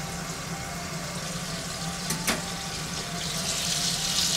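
Hamburger patties sizzling in a covered frying pan over a steady low hum, with a single sharp click a little over two seconds in. Near the end the sizzling grows louder and brighter as the lid comes off the pan.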